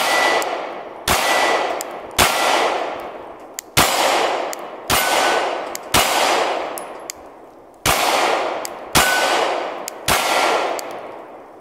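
About nine 9mm pistol shots from a Glock 26 Gen 4, spaced roughly a second apart with two slightly longer gaps, each echoing away slowly. A steel target plate rings faintly after several of the shots.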